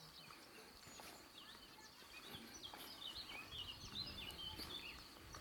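Faint birdsong outdoors: a quick run of short chirps in the middle, over a steady high-pitched tone and low background noise.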